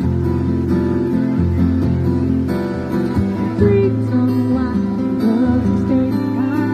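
Music: acoustic guitar strumming chords over low sustained bass notes.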